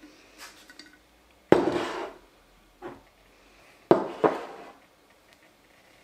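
A few sharp knocks of hard objects being handled, each with a short clattering tail: two loud ones about a second and a half and four seconds in, with a fainter knock between and another right after the second.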